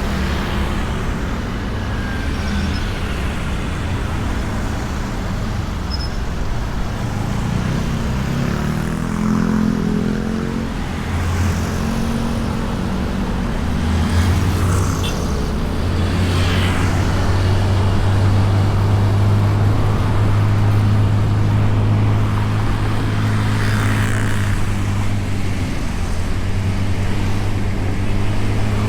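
Honda Beat scooter's small single-cylinder engine running under way, heard from a bike-mounted camera with road and wind noise. Its pitch rises about ten seconds in, then it holds a steady, louder hum, while other vehicles pass now and then.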